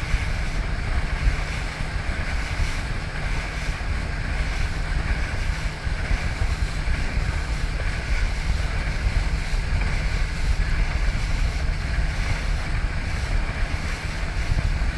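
Steady rushing of wind and water over a low rumble, with wind buffeting the microphone, like a boat underway at sea.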